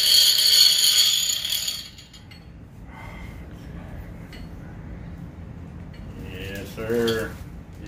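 Avet fishing reel turned by hand, its ratchet clicking in a fast, even buzz for about the first two seconds, then only quiet handling. A brief voice near the end.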